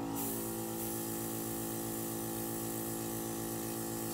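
Airbrush blowing a steady hiss of air and alcohol ink across the paper, over a steady low hum.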